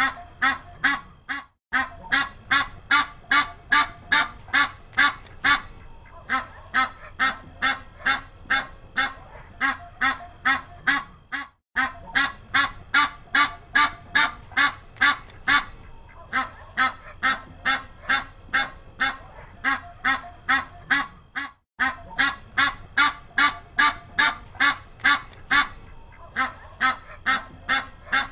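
Duck quacking in a fast, even series of about four calls a second, with a short break about every ten seconds.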